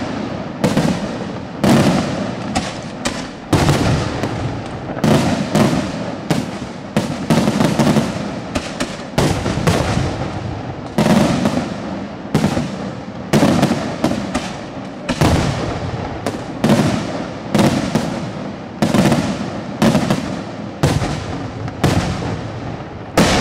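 Daytime fireworks battery: a rapid string of loud aerial shell bursts, about one to two bangs a second, each echoing and rumbling into the next.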